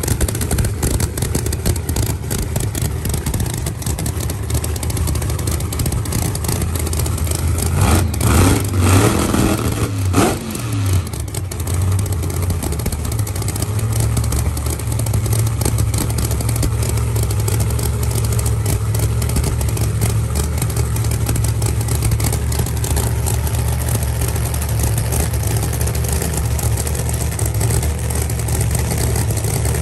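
632-cubic-inch nitrous big-block V8 in a drag-race Camaro idling, revved briefly twice about eight and ten seconds in.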